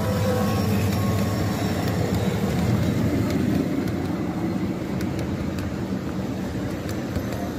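Ride-on scale model diesel locomotive hauling a train of freight cars past: a steady motor hum and wheels rolling on the rails, loudest as it passes a few seconds in, with light wheel clicks on the track near the end.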